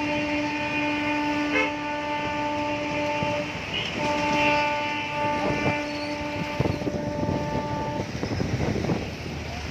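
Two long, steady horn blasts, the second starting about a second after the first ends; after the second stops, a rushing noise remains.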